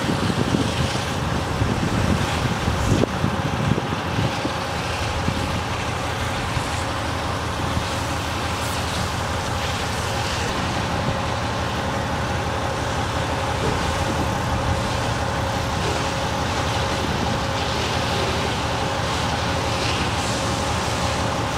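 Fire engine running its pump at a steady speed: a constant engine drone with a steady whine, mixed with the hiss of fire hoses spraying water.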